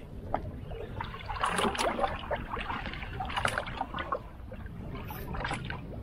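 Choppy water lapping and splashing against the hull of a bass boat in irregular bursts, the loudest about one and a half and three and a half seconds in, over a steady low rumble of wind on the microphone.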